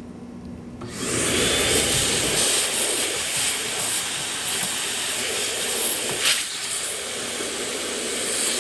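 Vacuum cleaner running, sucking dust out of a PlayStation 5 console: a steady, loud rush of air that starts about a second in, with one brief knock about six seconds in.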